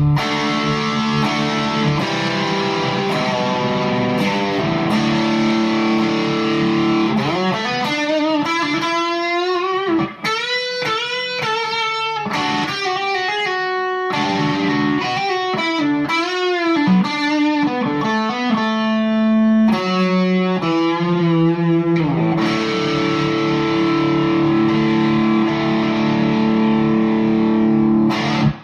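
Gibson ES-335 electric guitar played through a Bad Cat Bobcat 5R amp with an Angry Charlie overdrive pedal for higher gain. Held distorted chords, then a lead line in the middle with string bends and vibrato, then chords again, cut off sharply at the end.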